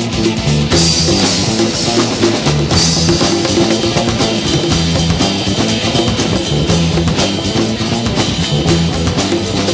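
Background music with a steady drum-kit beat and guitar.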